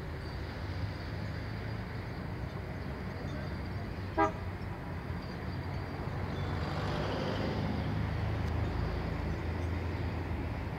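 Steady road-traffic rumble with one short car-horn toot about four seconds in, and the noise swelling as a vehicle passes about two-thirds of the way through.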